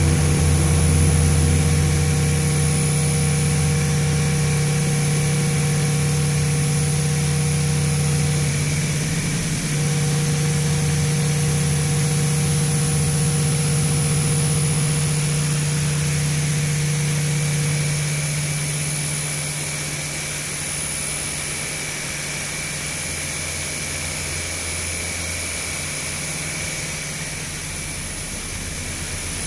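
Electronic sound-art drone from a live laptop performance: layered low hums with a few steady higher tones over a hiss. Some of the tones drop out and come back, and the whole drone thins and gets a little quieter about two-thirds of the way through.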